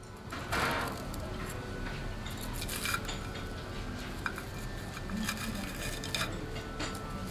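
Diner room noise with a few light clinks of chopsticks and dishes at the table.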